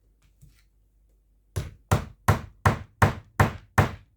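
A hammer striking a hand setting tool to close a gripper-stud (popper) socket onto its prongs through fabric: seven sharp knocks in a quick, even rhythm, about three a second, starting about one and a half seconds in.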